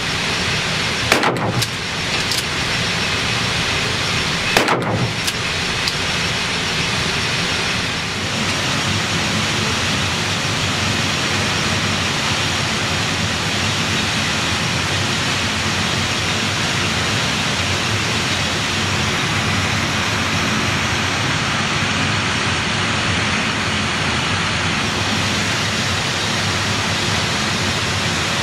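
Steady rushing noise with two short sharp knocks, about a second in and again about four and a half seconds in.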